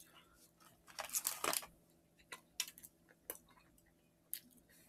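Quiet sounds of people eating fast food: a short rustle about a second in, then a few soft, scattered clicks.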